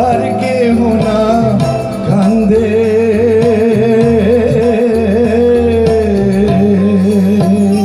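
Live band playing a Bengali song through a PA system: a lead singer holds long, wavering notes over bass guitar, tabla and keyboard.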